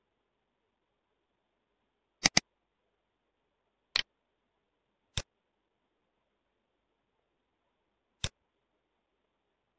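Computer mouse button clicks: a quick double click a couple of seconds in, then three single clicks spread over the next six seconds, sharp and separate, with nearly nothing between them.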